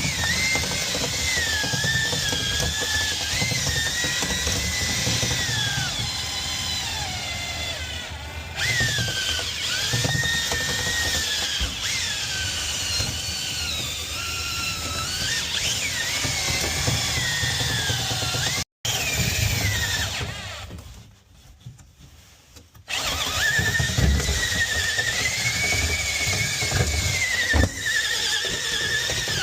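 Power drill spinning dryer vent cleaning rods and brush through a packed vent duct: the motor whine rises and falls as the trigger is worked. It cuts off sharply a little past halfway, stays low for about three seconds, then runs again.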